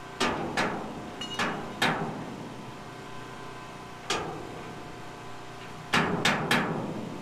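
A hammer striking steel: eight sharp blows, each with a short ring, coming as two, then two, a single blow, and three quick ones near the end.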